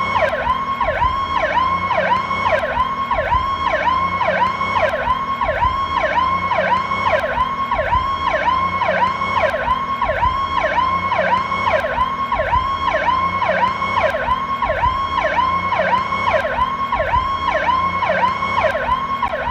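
Federal Signal Powercall electronic ambulance siren sounding a fast, even yelp, its pitch sweeping up and down about twice a second without a break.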